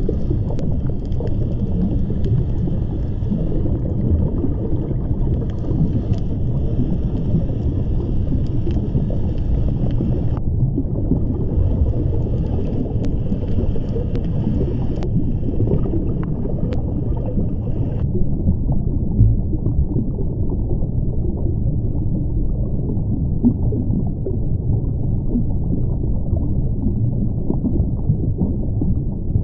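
Underwater ambience: a steady low rumble of moving water. A fainter higher hiss above it drops out briefly about ten seconds in, returns, and stops about eighteen seconds in, with a few faint clicks.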